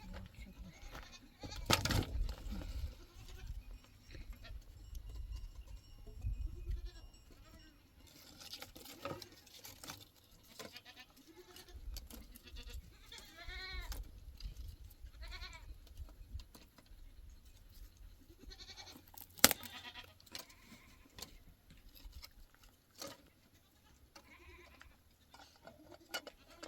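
Livestock bleating, with one wavering call about halfway through, among scattered knocks and clatter. A single sharp knock about two-thirds of the way in is the loudest sound.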